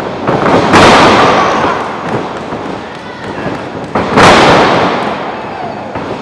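Wrestlers' bodies slamming onto the canvas of a wrestling ring, two loud bumps about three seconds apart, each echoing around the gym for a second or more.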